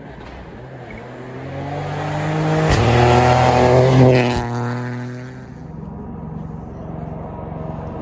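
Rally car approaching flat out at high revs and passing close by, loudest three to four seconds in, with two sharp cracks as it goes past, then fading into the distance.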